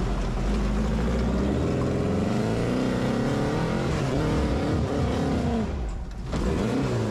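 Rail buggy engine revving under load while climbing, its pitch rising and falling; it eases off briefly about six seconds in, then picks up again.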